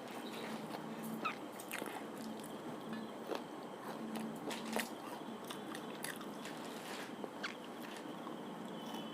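A person eating close to the microphone: steady chewing broken by scattered sharp crunches and mouth clicks, the loudest about a second in and again near the middle.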